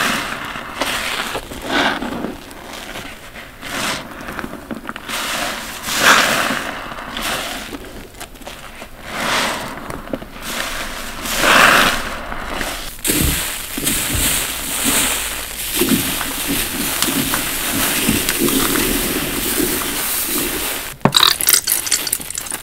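A foamy, soap-soaked bath sponge squeezed again and again in gloved hands. There is a squelch with crackling suds every second or two, then a longer, steadier stretch of wet squishing.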